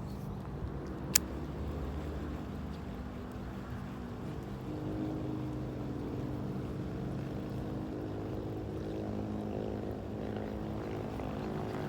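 A motor engine running steadily, its pitch shifting a little about halfway through. There is one sharp click about a second in.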